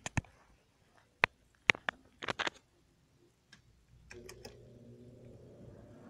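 A few sharp clicks and knocks from handling of a Lasko 20-inch box fan, then about four seconds in a low steady hum starts, its motor switched on and slowly building.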